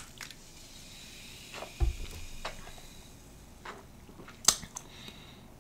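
Faint handling noises: a few light clicks and taps, with a soft thump about two seconds in and a sharper click near the end.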